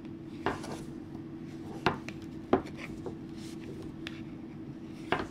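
Wooden 10 mm straight knitting needles clicking against each other at irregular moments as stitches are purled in super chunky yarn, with soft yarn rubbing between. There are a few sharp clicks, the loudest around two and two and a half seconds in, and one more near the end.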